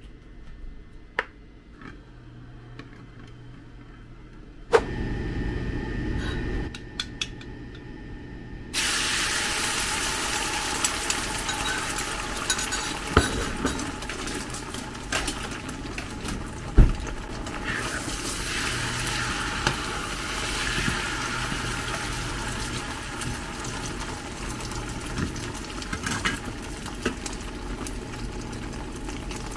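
Beaten eggs sizzling hard in hot oil in a non-stick frying pan as a Thai omelette fries, with a few sharp knocks of a metal spatula against the pan. The first seconds are quieter while oil is poured into the pan; the sizzling starts suddenly about nine seconds in.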